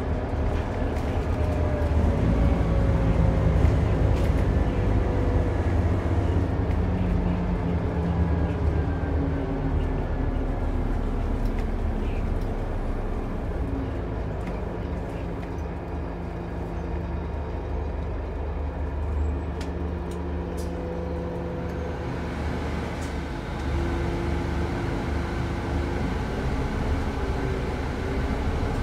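Scania N230UD double-decker bus's five-cylinder diesel engine and drivetrain running as the bus drives, heard from inside the passenger saloon over road noise. The engine note slides down over the first few seconds, then shifts in pitch and level as the bus changes speed.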